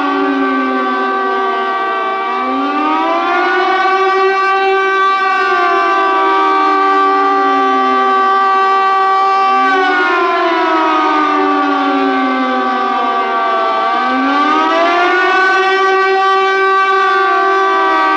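Air raid siren wailing: its pitch slides down, climbs back up, then falls and rises again near the end, over steady held tones.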